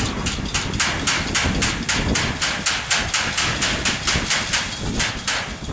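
Chain-link fence being shaken hard by hand, its wire mesh rattling in quick, even clashes, about four to five a second, that stop just before the end.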